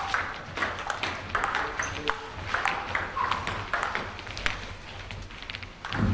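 Table tennis balls clicking sharply against bats and the table in quick, irregular succession during doubles play.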